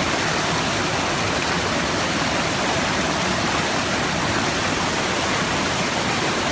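Waterfall crashing down steadily, a loud, even rush of falling water.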